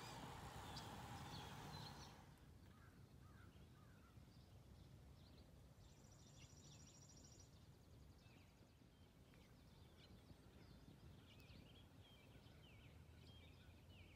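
Faint rural ambience with scattered songbird chirps and calls. A steady hiss drops away about two seconds in, and a fast, high trill runs for about a second and a half around six seconds in.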